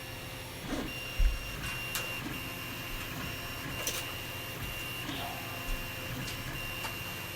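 3D printer running a print: its stepper motors hum and whine steadily as the head moves, with a few sharp clicks and a dull thump about a second in.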